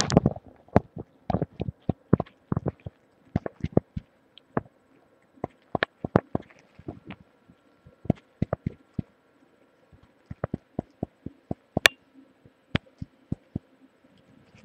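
Irregular sharp clicks and knocks, picked up by a webcam microphone pressed against the body, over a faint steady hum.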